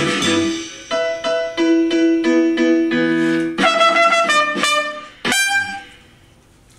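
Closing bars of a jazz tune: a backing track's keyboard chords struck in a steady pattern, then a live trumpet playing the last phrase over it. The music ends on one sharp final hit that rings out and fades away.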